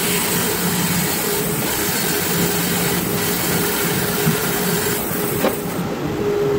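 Grizzly 17-inch bandsaw (G0513X2BF) with a 1-inch bimetal blade ripping through a spalted box elder log. The cut makes a steady hiss over the machine's constant hum, and near the end the highest part of the hiss drops away.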